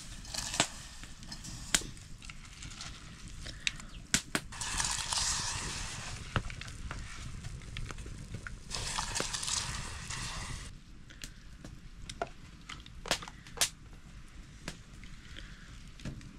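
Kitchen cooking sounds: scattered sharp knocks and clicks of utensils, with two spells of hissing about two seconds long, around five and nine seconds in.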